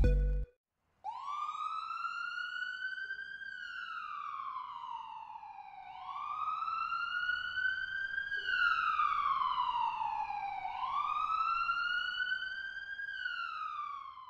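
Emergency vehicle siren on a slow wail, its pitch rising and falling three times, about five seconds per cycle, after a short silence. Background music cuts off about half a second in, just before the siren starts.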